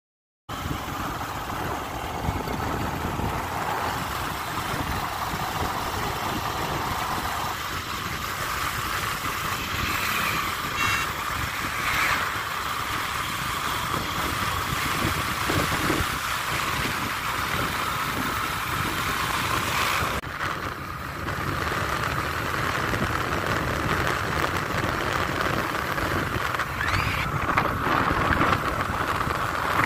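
Motorbike riding along an open road: steady engine and road noise as heard from the bike, starting suddenly about half a second in.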